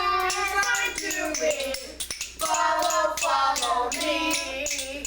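Children singing a song together, a run of held notes broken by short pauses.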